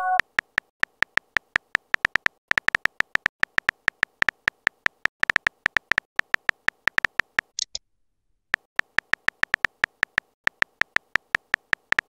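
Simulated phone-keyboard typing clicks from a texting-story app, quick taps at several a second. They pause for under a second past the middle after a brief high chirp, then start again.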